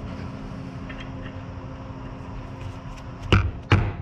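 Mallet striking a socket set on a motorcycle shift-lever bushing clamped in a bench vise, driving the bushing further in. Two sharp blows come near the end, about two a second, over a steady background hum.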